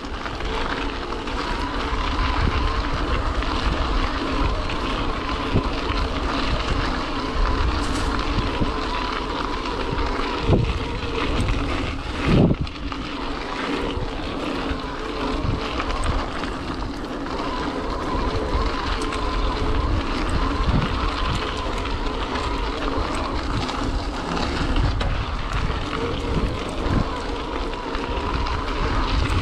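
Mountain e-bike riding on a dirt singletrack: wind buffeting the microphone and tyres rolling over the trail, with scattered knocks from the bike over rough ground and one harder knock about twelve seconds in. Underneath runs a faint steady whine from the Tongsheng TSDZ2 mid-drive motor.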